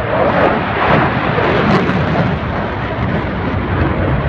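Eurofighter Typhoon jet flying past, its twin EJ200 turbofans making a loud, rough jet noise that swells in the first second and then stays loud and steady.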